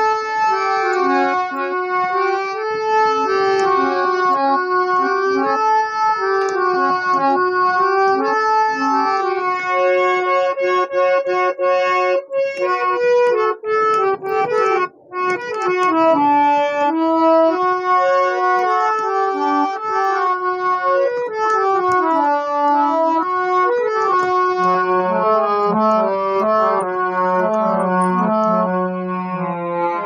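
Harmonium played solo: a melody of held, reedy keyboard notes, with a brief break about halfway through and lower chord notes joining near the end.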